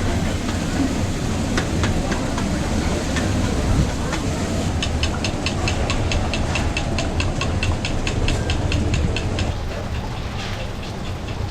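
Steady rumble and hiss of a busy hawker-stall kitchen, with a run of rapid, even clicks of metal on metal, about six a second, for several seconds in the middle.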